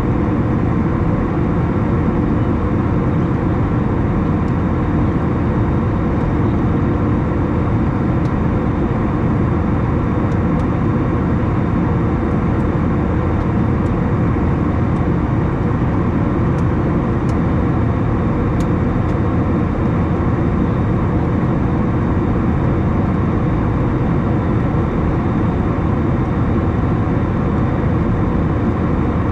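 Steady drone inside the main cabin of an Airbus A321 in flight: engine and airflow noise heard from a window seat, even and unchanging.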